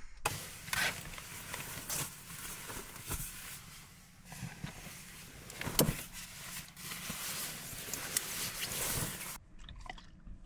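Fabric rustling and soft knocks as bedding, jackets and other things are moved around in a cramped camper, with a sharp click about six seconds in.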